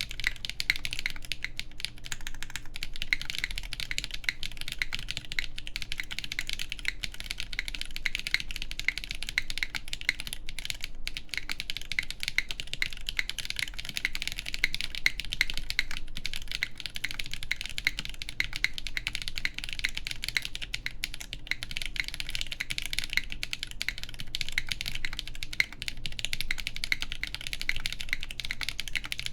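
Steady, continuous typing on a Neson 700E mechanical keyboard with KTT Yexia switches lubed with Krytox 205g0, an aluminum plate and GMK keycaps: a dense run of keystroke clacks with no pauses.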